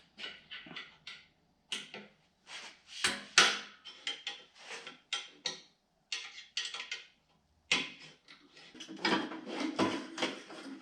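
A string of short scrapes, rubs and knocks, loudest about three and a half seconds in, as a Harley-Davidson Fatboy's rear fender is worked loose and pulled off the frame.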